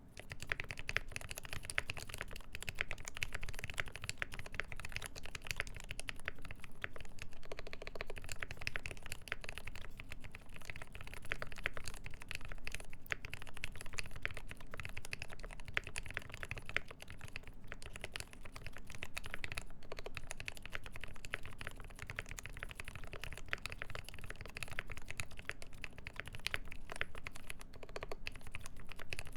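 Continuous fast typing on a Mode 80 Founders' Edition mechanical keyboard: lubed linear Tealios switches with milky Gateron top housings on a full brass plate, under GMK keycaps, giving a dense stream of key clacks.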